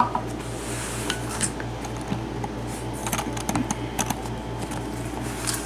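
Scattered light metallic clicks and clinks of a mortise lock cylinder and small tools being handled, over a steady low hum.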